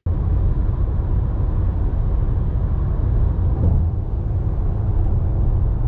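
Steady low rumble of road and engine noise inside a car's cabin while driving along a highway.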